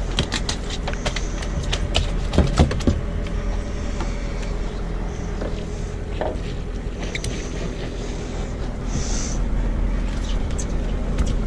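Boat engine running steadily, with a cluster of sharp clicks and knocks in the first three seconds.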